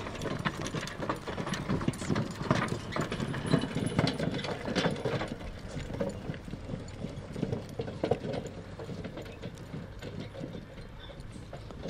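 A draft horse's hooves clip-clopping as it pulls in harness, with a dense rattling and clattering of the cart and harness gear. The clatter thins out about two-thirds of the way through.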